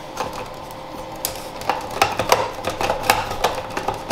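Electric blade spice grinder running on granulated garden lime, with a steady hum and irregular rattling clicks from the granules hitting the lid and blades, thickest in the middle stretch.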